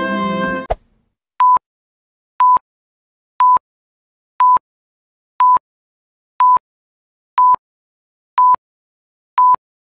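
Singing with music cuts off just under a second in. Then a high electronic beep, one pure steady tone, sounds once a second: nine short beeps in all, with silence between them.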